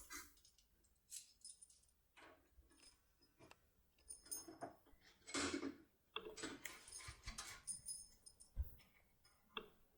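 Faint, scattered metallic clicks and light jingling from a lock cylinder and lock-pick tool being handled, mostly in the second half, with one sharper click near the end.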